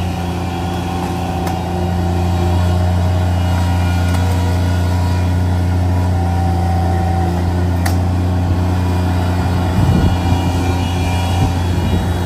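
Bobcat mini track loader's engine running at a steady speed, with a louder, rougher stretch about ten seconds in.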